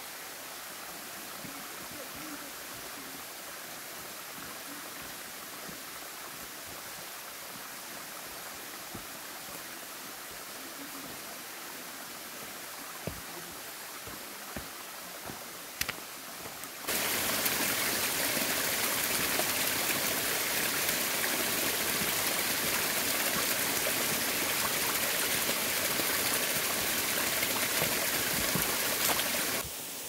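Mountain stream rushing steadily over rocks. A few sharp clicks of boots on rock come a little past the middle. Then the rushing sound jumps abruptly much louder, holds, and drops back just before the end.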